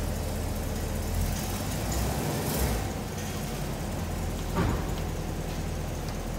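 Chevrolet Camaro V8 with aftermarket headers idling steadily on a chassis dyno, its exhaust really loud. A single short knock sounds about two-thirds of the way through.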